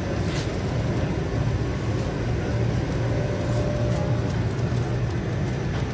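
Background noise of a busy street-food stall: a steady low hum with indistinct voices and a few light clicks.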